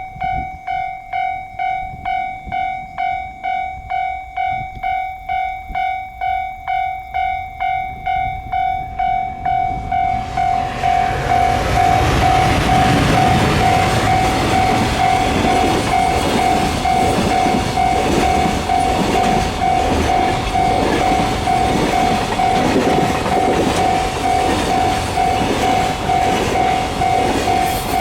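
Japanese level-crossing alarm ringing its electronic bell at about two strokes a second. About ten seconds in, a train reaches the crossing and passes with a loud rush and a rhythmic clatter of wheels, the bell still sounding under it.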